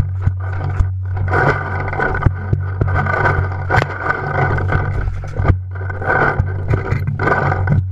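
Scuffing and rustling in dry leaf litter as a player moves low across the ground, with irregular knocks and rubbing of gear against the gun-mounted camera. A steady low hum runs underneath.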